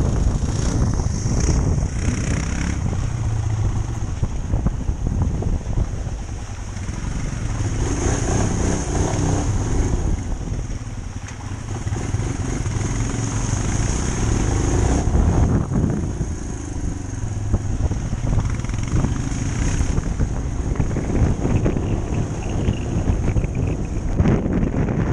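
On-board motorcycle engine running while riding a rough, puddled dirt track, its rumble easing and picking up with the throttle, with wind noise on the microphone.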